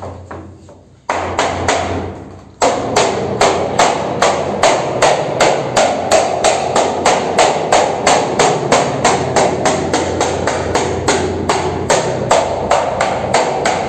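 Hammer blows driving in the door casing trim, struck rapidly and steadily at about three to four blows a second, growing louder about one and two and a half seconds in.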